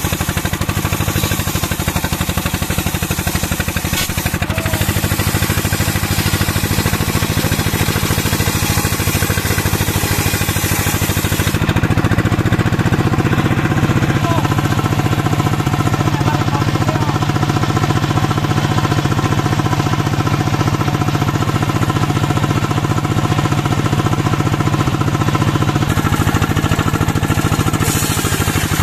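Engine of a mobile circular sawmill running steadily with a fast knocking beat. A bright hiss over it drops away about twelve seconds in and comes back near the end.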